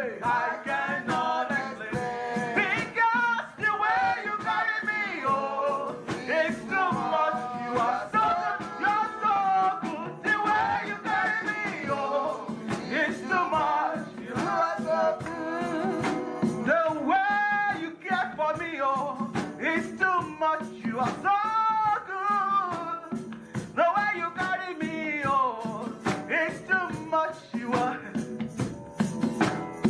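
Gospel worship music: a male lead voice sings with a wavering vibrato over instrumental accompaniment.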